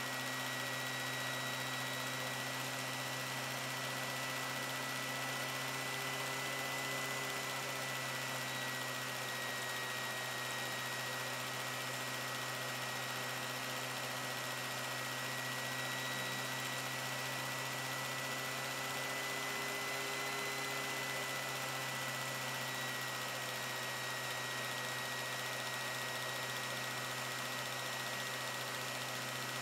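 Steady electrical hum and hiss with a thin high whine that wavers slightly in pitch; nothing else is heard.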